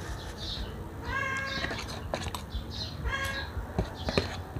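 Two short animal calls, each rising then falling in pitch, about a second in and again about three seconds in. Near the end come a few light clicks of a spoon and fork against a foil tray.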